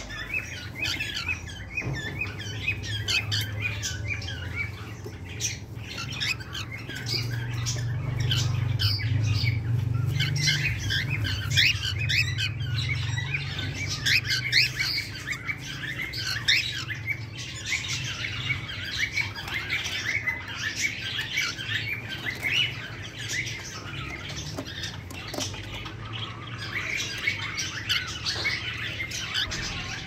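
Cockatiels in a nest box chirping rapidly and continuously in short, high notes, with a low steady hum underneath that is stronger in the first half.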